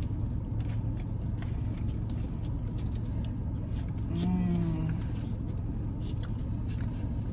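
Steady hum of a car's air conditioning with the engine running, under crinkling paper food wrappers and chewing. A short hummed "mmm" comes about four seconds in.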